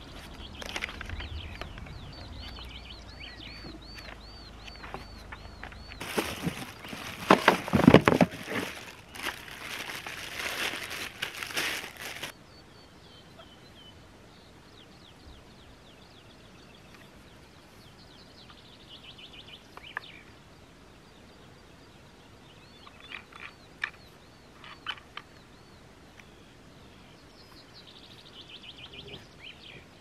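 Plastic wrapping and cardboard packaging rustling and crinkling loudly for about six seconds as vacuum cleaner parts are unpacked, then cutting off abruptly. After that come occasional small handling clicks. Birds chirp in repeated short calls throughout.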